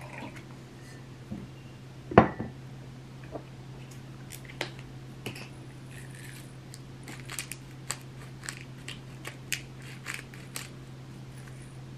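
A hand-twisted pepper mill grinding over the fondue pot, giving an uneven run of short crunchy clicks for several seconds. A single sharp knock about two seconds in comes before it.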